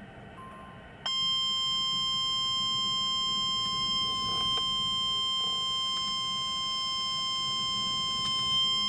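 NOAA Weather Radio's 1050 Hz warning alarm tone: one steady, shrill tone that starts about a second in and holds, sounded through a weather radio speaker ahead of a watch or warning message. A few faint clicks sit over it.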